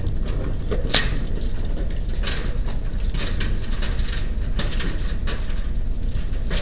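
Scattered knocks and clicks of hand work on a large sliding door's top rail fittings, the sharpest about a second in, over a steady low rumble.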